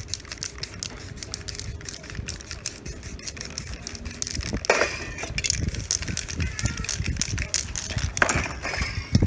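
Aerosol spray paint can hissing in many short, rapid bursts, with a couple of longer sprays about halfway through and near the end.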